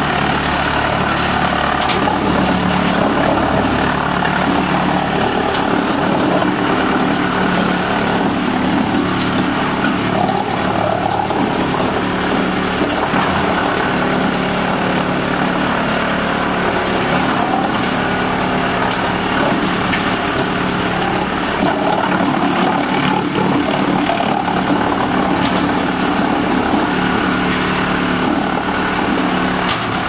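Large conveyor-fed wood chipper running steadily, a constant machine drone with a steady pitch, as logs ride the conveyor into its feed throat.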